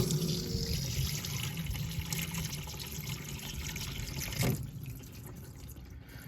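Engine oil pouring from the open drain hole of a 1995 Toyota Celica's oil pan into a drain pan: a steady splashing stream that drops off about four and a half seconds in, leaving drips.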